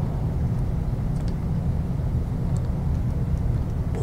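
A few faint clicks of side cutters squeezing a crimp sleeve onto a tail-wheel steering cable, over a steady low background hum.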